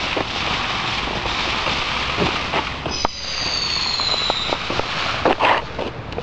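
Fireworks going off: continuous dense crackling with scattered sharp pops, strongest about five and a half seconds in. About three seconds in, a high whistle glides slightly downward for about a second and a half.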